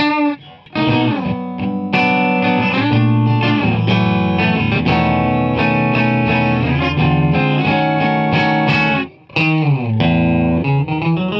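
Electric guitar (Fender Jazzmaster) played clean through an Electro-Harmonix Intelligent Harmony Machine in doubler mode, each note doubled with a slight delay so it sounds like two guitars playing together. Notes slide up at the start and again near the end, with ringing chords between and a brief break near nine seconds.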